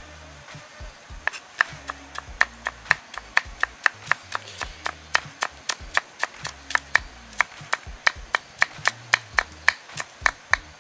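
A large kitchen knife chopping garlic on a round wooden chopping board. After a few scattered knocks, the chopping settles into quick, even knocks about four a second from about a second in.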